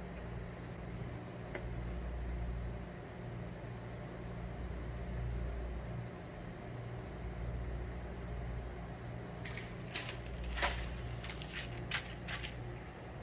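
A clear plastic sheet crackling in a quick run of sharp crinkles as it is spread over rounded dough balls, starting about two-thirds of the way in. Beneath it, a steady low machine hum runs throughout.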